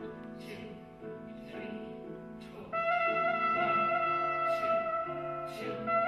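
Music with sustained brass-like held notes over a low held chord; a louder high note comes in about halfway through and holds.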